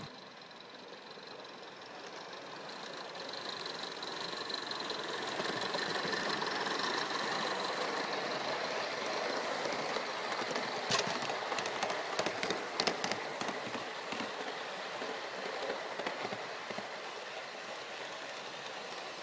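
Gauge 1 live steam model of an NSWGR C32 class locomotive running with its carriages, getting louder as it comes closer and easing off as it passes. A run of sharp clicks about eleven to thirteen seconds in comes as the wheels run by.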